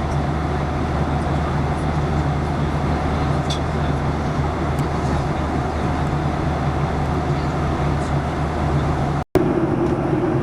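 Steady in-flight cabin noise of a Boeing 737-800: a constant low rumble of engines and rushing air. Near the end it drops out for an instant and comes back with a slightly different hum.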